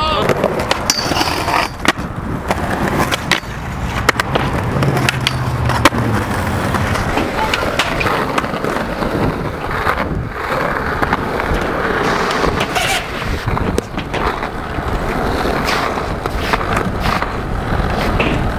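Skateboard wheels rolling over concrete and asphalt, with repeated sharp clacks of boards popping and landing.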